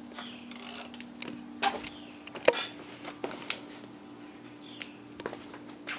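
Scattered sharp clicks and knocks, at uneven intervals and loudest about two and a half seconds in, from a motorcycle's handlebar turn-signal switch being worked, over a steady high-pitched whine and a low hum.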